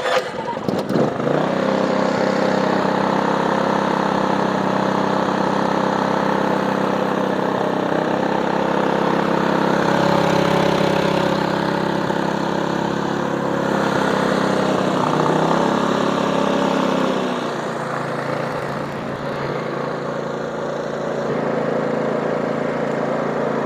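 AIMS 3200-watt inverter generator's four-stroke OHV engine running just after being started with its key. About 17 seconds in it drops to a lower, quieter engine speed and keeps running steadily.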